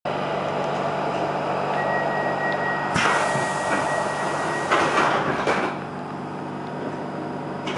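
Stockholm Metro C6 train running inside the car as it slows into a station: steady wheel and rail noise with a thin, steady high whine, and several knocks around the middle. It goes quieter after about six seconds as the train nears a stop.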